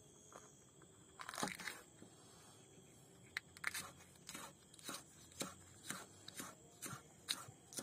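Large kitchen knife chopping green chili peppers on a wooden chopping block: sharp knocks of the blade striking the wood through the crunchy peppers. A few cuts come about a second in, then a steady run of about two a second from about three seconds in.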